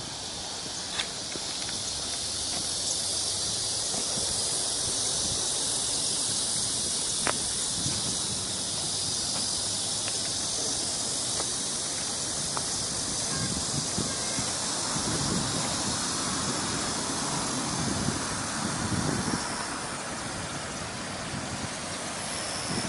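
Steady high-pitched hiss of outdoor ambience, with a few low rumbles about two-thirds of the way through.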